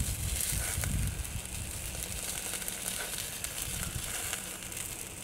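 Hamburger sizzling in a wire grill basket over a small wood fire in a Littlbug Sr. camp stove, with a few faint crackles from the burning wood. A low rumble of breeze on the microphone runs underneath.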